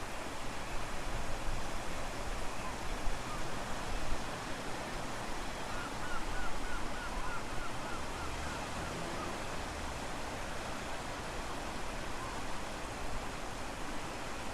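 Strong wind rushing and gusting against the microphone, over the wash of ocean waves. About six seconds in comes a quick run of about ten faint high chirps.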